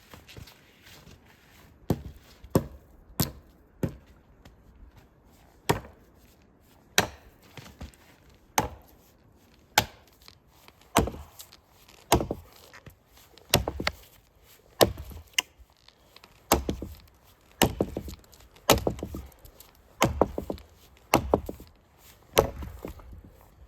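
Firewood being chopped: a series of sharp, separate blows into wood, roughly one a second at an uneven pace.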